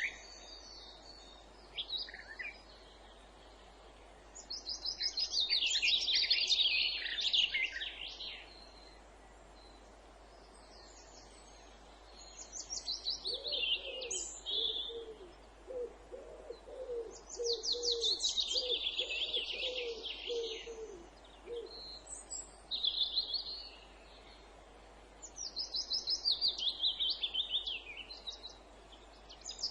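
Songbirds singing in phrases of rapid repeated high notes, each a second to three long, with pauses between; some phrases fall in pitch. In the middle, a run of low, evenly spaced hooting notes sounds beneath the song for several seconds.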